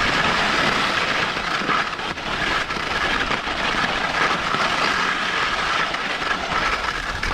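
Skis sliding and scraping over groomed piste snow during a downhill run, a steady continuous noise.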